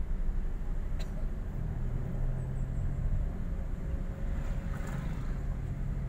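Car running on the road, heard from inside the cabin: a steady low engine and road rumble, with a low drone that settles in about a second and a half in and a single click about a second in.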